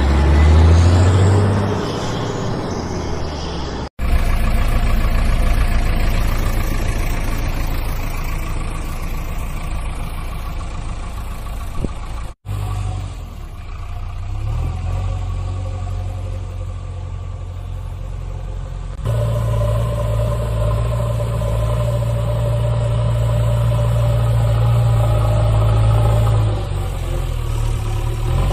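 Dubbed-in heavy vehicle engine sound effect, a steady low engine drone running under the toy play. It cuts out abruptly about 4 seconds and about 12 seconds in, and about 19 seconds in it switches to a higher, steadier engine note.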